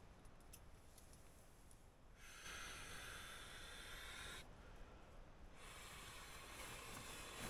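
A man blowing up an inflatable by mouth: two long, steady breaths blown into its valve, each a faint hiss lasting about two seconds, with a short pause between them.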